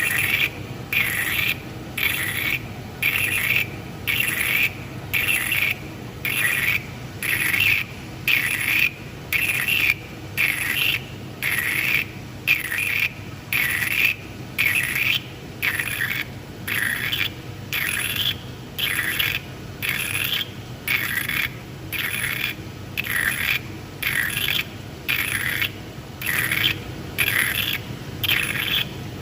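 Die-sinker EDM machine spark-eroding an injection-mould cavity: the spark discharge crackles in regular pulses, a little more than one a second, cut off each time the electrode lifts to flush the gap.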